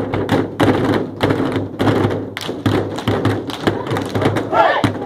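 A group of people beating their fists on tables and clapping their hands in one shared rhythm, about four beats a second, in the table-beating hand game 'batida de mesa'. A short voice cuts in near the end.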